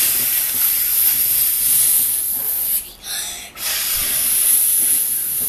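A child blowing hard through pursed lips, acting out the wolf blowing the house down: a loud breathy whoosh in three breaths, a long one of nearly three seconds, a short puff, then another long blow.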